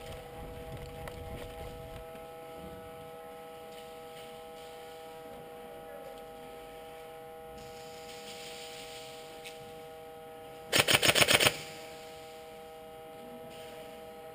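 An airsoft gun fires one short full-auto burst of about eight rapid shots, a little under eleven seconds in. Beneath it runs a steady electrical hum with several tones.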